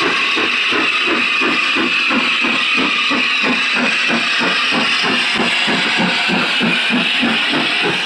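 Austerity 0-6-0 saddle tank steam locomotive working past at close range, its exhaust beating in a rapid, even rhythm over a steady hiss of steam.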